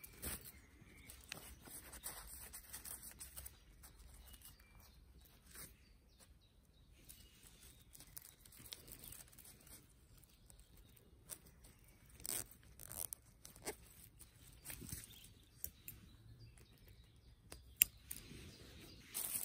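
Fabric artificial leaves and a nylon mesh ghillie-suit base rustling and crinkling as they are handled and worked together, with a few sharp snips of small scissors, the sharpest near the end.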